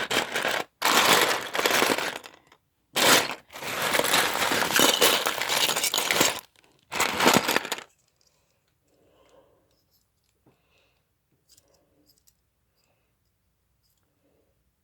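Loose plastic Lego pieces clattering in three loud runs as a hand rummages through a pile of them, then only a few faint clicks of pieces being handled.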